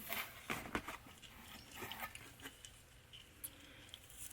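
Faint handling noises: scattered light clicks and rustles as small items are moved about.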